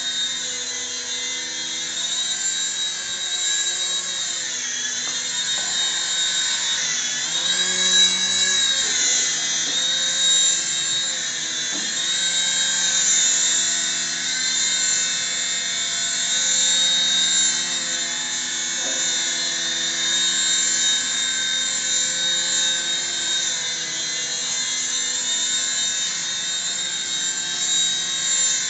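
Electric motors and twin stacked rotors of a small indoor RC toy helicopter in flight: a steady high-pitched whine that wavers, dipping and rising in pitch.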